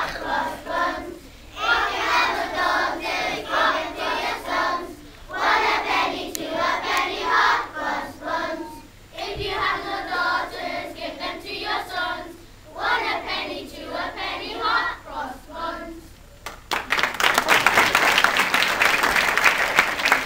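Group of children singing together in short phrases with brief pauses between them, then applause and clapping breaking out about three-quarters of the way through and running to the end.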